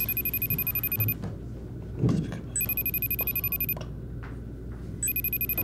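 Telephone ringing on an outgoing call that goes unanswered: a high electronic trill in bursts about a second long, roughly two and a half seconds apart.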